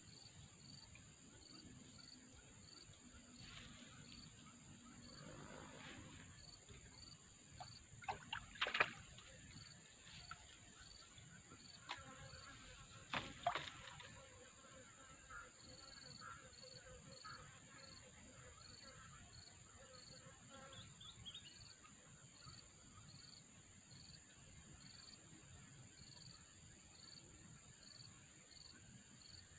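Quiet outdoor background of insects: a steady high-pitched insect drone with a cricket chirping regularly, less than a second apart. A few brief knocks or splashes stand out about a quarter of the way in and again near the middle.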